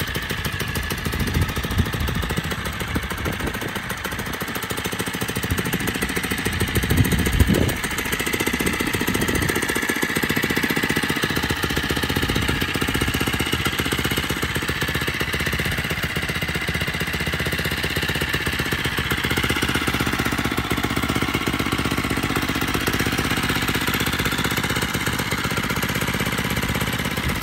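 Single-cylinder 79cc four-stroke engine of a motorized bicycle, idling steadily and running smooth, with a brief louder burst about seven seconds in.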